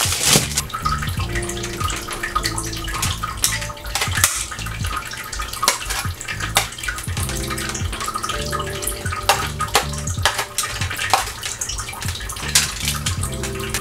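Aluminium foil crinkling as it is pressed into a metal baking tray, then metal tongs clicking and wet marinated chicken pieces being lifted from a plastic tub and laid on the foil, with many short clicks and crackles throughout.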